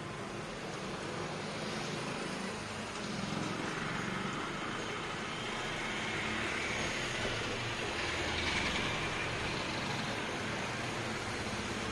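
Sweet bondas deep-frying in a wide iron kadai of hot oil: a steady sizzling hiss, with a low, steady rumble underneath.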